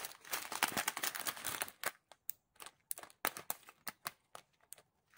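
Small zip-lock plastic bags of diamond-painting rhinestones being handled: about two seconds of dense crinkling, then scattered crinkles and clicks.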